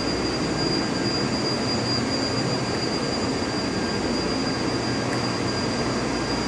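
Taipei Metro Songshan line train running, heard from inside the passenger car: a steady rumble of the running train with a thin, steady high tone over it.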